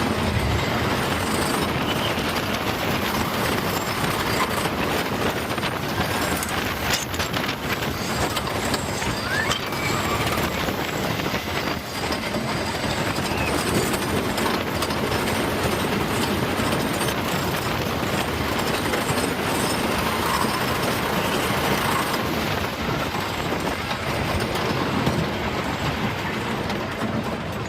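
Ghost Rider wooden roller coaster train running along its track: a steady, loud rattling rush of noise.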